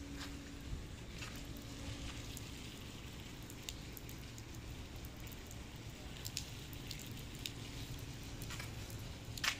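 Dry-dock ambience: a steady low rumble with scattered light ticks and taps, one louder tick near the end.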